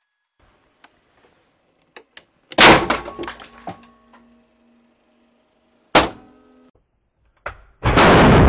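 A 50,000-ampere pulse discharge from a 4 kJ capacitor bank blasting a Samsung Omnia Pro B7330 mobile phone apart. There are two very loud sharp bangs, each followed by fading metallic ringing. Near the end a crack leads into a long, loud blast.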